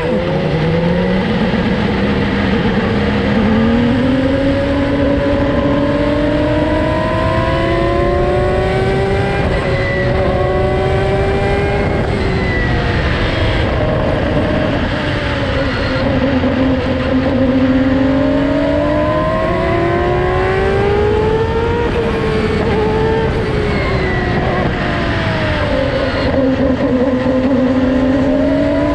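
Honda 2.2-litre twin-turbo V6 of an IndyCar, heard on board, pulling away from low revs at the start and climbing in pitch as the car gathers speed at an easy install-lap pace. The pitch sags about halfway through and again near the end as the car slows, then rises again.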